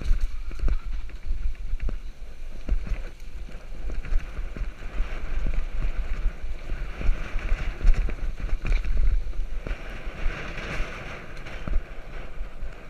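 Wind buffeting the microphone of a camera on a mountain bike riding fast downhill on a rough dirt track. Tyres crunch on the dirt while the bike rattles and knocks over bumps.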